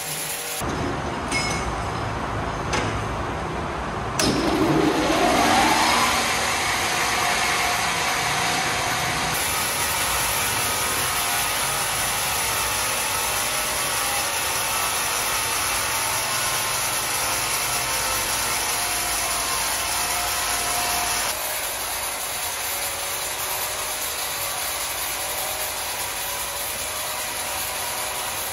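Sawmill machinery running steadily, with a rising whine about four to six seconds in; the sound shifts abruptly a few times.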